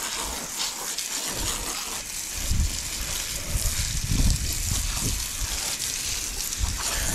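Garden hose spray nozzle hissing steadily as water jets onto a horse's leg and splashes onto wet brick paving, with bouts of low rumbling.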